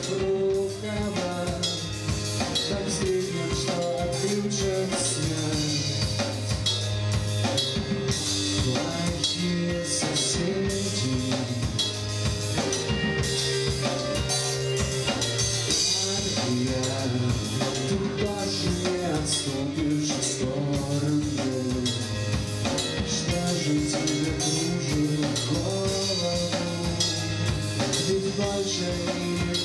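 Live rock band playing: a drum kit keeps a steady beat under guitar and a male singer's vocals.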